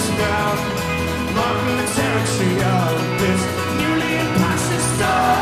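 Live folk-rock band playing an instrumental passage: strummed acoustic guitar, picked banjo and upright double bass, over steady drums.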